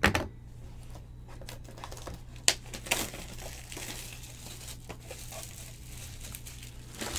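A thump as a cardboard trading-card box is picked up, then crinkling and tearing of its plastic wrapping as it is opened, with a couple of sharp clicks about halfway through.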